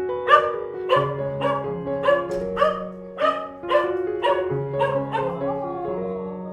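A dog barking repeatedly, about two barks a second, for some five seconds over soft background music.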